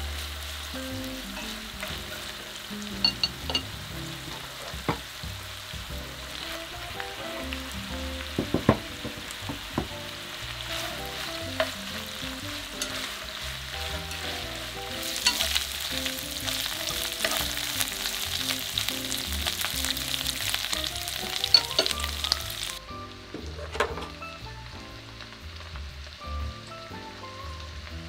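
Thin-sliced pork belly sizzling in a frying pan, with a few sharp clicks of chopsticks against the pan as it is stirred. The sizzle gets louder about halfway through, once sliced onion is in the pan, and stops near the end, leaving soft background music.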